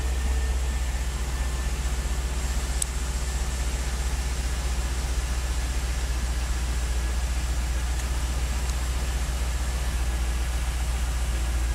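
Holden VE Commodore SS V's V8 engine idling steadily, with one short click about three seconds in.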